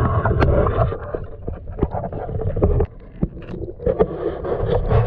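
Muffled rumbling water noise picked up by a camera dipped in an ice-fishing hole, with scattered clicks and knocks as it is handled.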